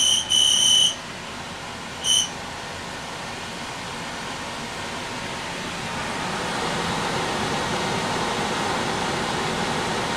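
RV furnace blower fan running, a steady rush of air that slowly grows louder over the first several seconds as it comes up to speed; this is the blower run before the burner lights. Loud high electronic beeps sound at the very start, with one short beep about two seconds in.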